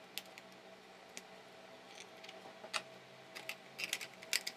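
Light plastic clicks and taps from handling a mini wireless keyboard's battery compartment and its BL-5C lithium-ion battery. The clicks are sparse at first and bunch into a quick run of clicks near the end.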